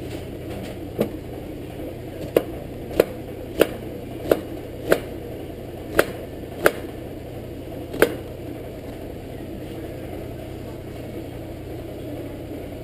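Chef's knife chopping an onion on a plastic cutting board: about nine sharp knocks at uneven intervals, stopping a little past the middle. A steady low hum runs underneath.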